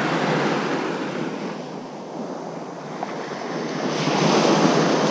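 Small surf waves breaking and washing up the sand. The sound swells at the start, eases off in the middle and swells again about four seconds in as the next wave comes in.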